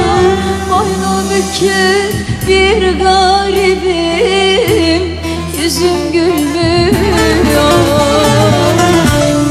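A woman singing a Turkish folk song (türkü) into a microphone, her voice wavering and ornamenting long held notes, over instrumental accompaniment.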